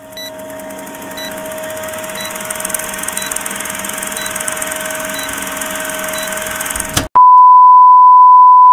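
Old-film countdown leader sound effect: a steady projector-like whirring noise with a faint held tone and a short blip once a second. About seven seconds in it cuts abruptly to a loud, steady, high test-tone beep, the tone that goes with TV colour bars.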